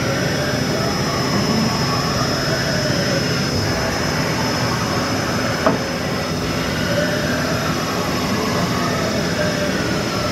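Haas Mini Mill CNC table traversing under its axis servo drive, a machine whine whose pitch rises and falls as the axis speeds up and slows down, over a steady high tone. A single sharp click sounds about halfway through.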